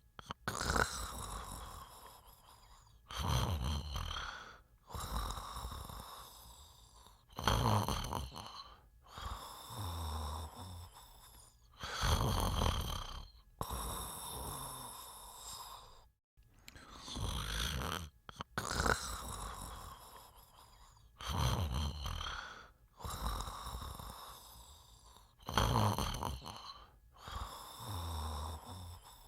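A sleeping person snoring in a steady rhythm, with a loud rasping snore about every four to five seconds. Each snore is followed by a quieter, drawn-out breath out with a faint high whistle.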